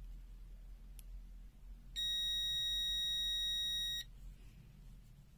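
The Ivrzliang ZL2021 digital multimeter's continuity buzzer sounds one steady, high-pitched beep about two seconds long. It starts about two seconds in and cuts off suddenly. The beep signals continuity: the resistance between the test leads is under about 50 ohms.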